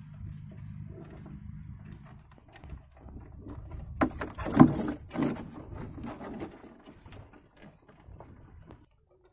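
Mud crab's shell and legs clattering and scraping on the wet tank floor as it is grabbed and handled. A loud burst of knocks and scrapes comes about four to five seconds in, with smaller clicks and scrapes after it; a low steady hum fills the first two seconds.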